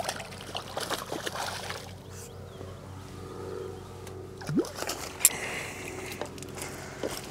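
A small F1 carp hooked on a pole rig, splashing at the surface as it is played and brought to a landing net, with clicks and knocks from the pole and net and a sharp tap about five seconds in.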